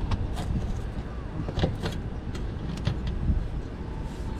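Scattered light clicks and taps of plastic undercarriage-panel fasteners being worked loose, over a steady low rumble.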